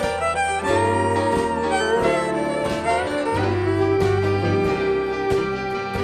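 Western swing band playing an instrumental intro live, two fiddles carrying the melody over guitars and a steady bass.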